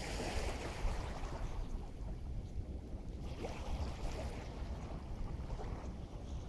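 Wind rumbling on the microphone over waves washing in, with two swells of hissing surf, the second about three seconds in.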